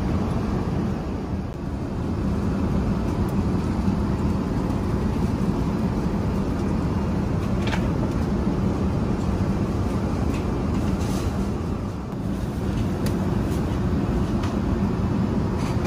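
Steady cabin noise inside an Airbus A380: a low, even rush of air and engine drone, with a few faint light clicks.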